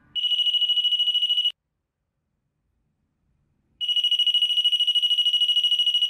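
Battery-powered door knob alarm going off as a hand touches the knob it hangs on: a loud, high-pitched beep pulsing very rapidly. It sounds for about a second and a half, stops, then sounds again from about four seconds in.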